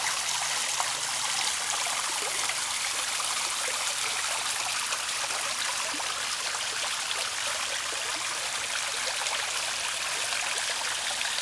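Small garden waterfall: water spilling steadily over a stone ledge into a shallow pond, an even splashing trickle.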